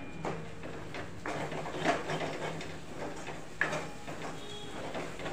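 Metal spoon scraping and knocking against a metal kadhai, in short irregular strokes, as masala paste is stirred and sautéed in oil.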